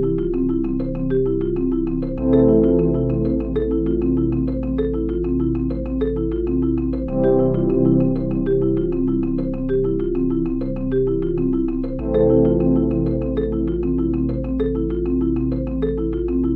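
Background music led by marimba-like mallet notes in a quick steady rhythm, over a bass line that changes every few seconds.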